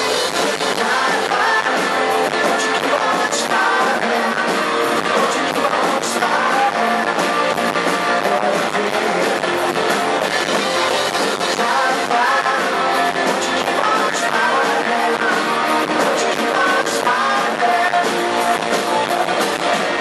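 Live rock band playing: electric guitars, bass guitar and drums, with a sung vocal, recorded from the audience with little deep bass.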